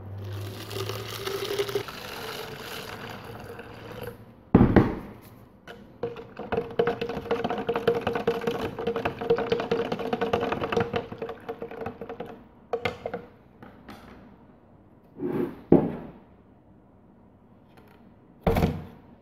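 Water pouring into a plastic bottle to mix a rust-remover bath, in two long pours. Short, sharp thumps fall between and after the pours and are the loudest sounds; the last comes near the end as the hammer head goes into the bottle.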